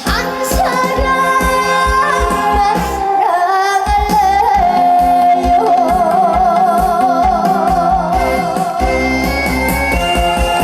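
A young girl singing a trot song over a backing track with a steady beat, holding one long note with vibrato through the middle.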